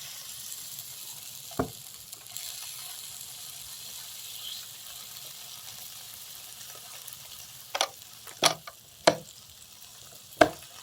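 Tater tots sizzling on a grilled cheese machine, a steady high hiss. One sharp knock comes about one and a half seconds in, and a few more sharp clicks come in the last three seconds.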